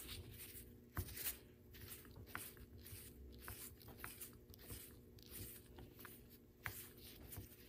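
Faint ticks and light scraping of a screwdriver turning the main adjustment screw into a small-engine carburetor body, run all the way in to find its setting. A steady low hum sits underneath.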